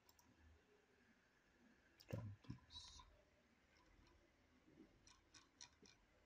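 Faint computer mouse clicks: a soft thump and a short hiss about two seconds in, then a quick run of about five clicks near the end.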